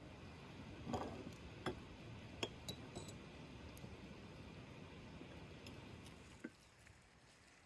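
Light clinks and taps of tea glasses, saucers and a wooden bowl on a wooden table: a handful of short sharp ticks in the first three seconds and one more near the end, over a faint steady hiss.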